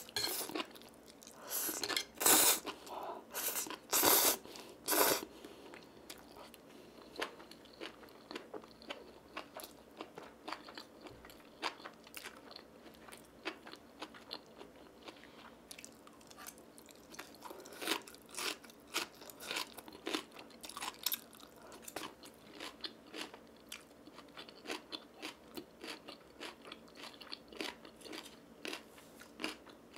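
Close-miked eating sounds: spicy stir-fried instant noodles slurped in a few loud bursts in the first five seconds, then steady open-mouthed chewing with many small wet clicks and smacks.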